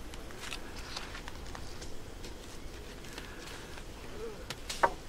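Dry, charred sticks and twigs cracking and clattering as a person steps through burnt slash and gathers them: scattered sharp clicks, with one louder crack near the end.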